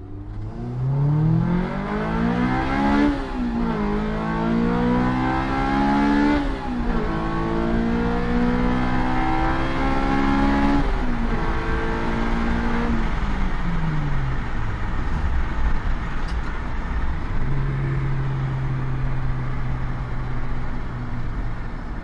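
Honda S2000's four-cylinder engine heard from inside the stripped cabin, pulling hard through the gears. Its pitch climbs and drops sharply at each upshift, three times in the first eleven seconds. Then it winds down as the throttle is lifted and settles into a steady low cruise for the last few seconds.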